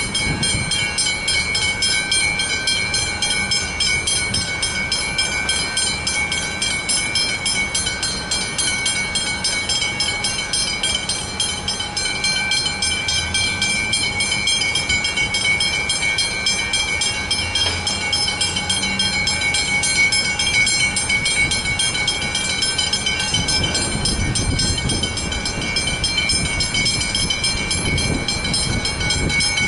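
Westinghouse Hybrid level-crossing bells ringing continuously in a fast, steady repeating pattern while the boom gates are down. A low rumble swells underneath from about three-quarters of the way in.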